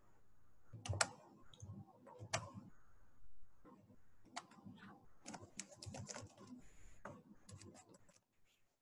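Faint computer mouse clicks and keyboard key taps, scattered irregularly with a few quick runs of taps.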